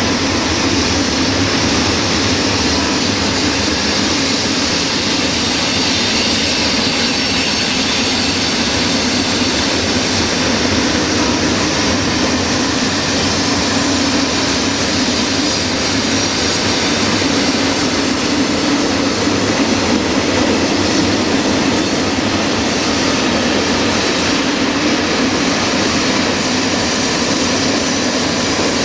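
Open-top freight wagons rolling past close by: a steady, loud noise of steel wheels running on the rails.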